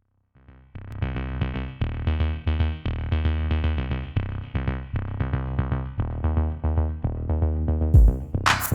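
Electronic background music: a repeating synthesizer pattern over a deep bass starts about half a second in after a brief silence, and drum-machine hits join near the end.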